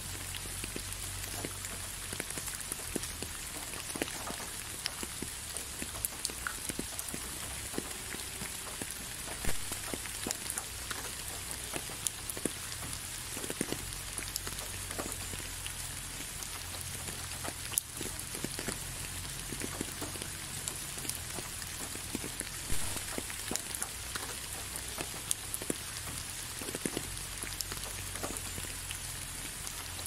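Steady rain falling, with many separate drops ticking close by and a few louder drop hits.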